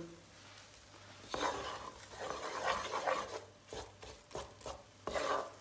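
Wooden spoon stirring and scraping thick tomato and pepper paste frying in oil on low heat in a coated pot: a series of short, irregular scrapes starting about a second in.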